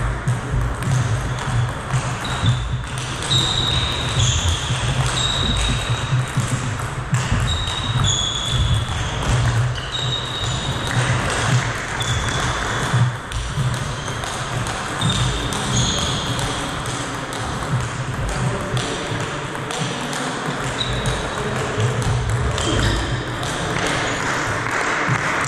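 Table tennis ball clicking off the bats and bouncing on the table during play, heard as a scattering of short, high pings in an echoing hall, over a steady low hum.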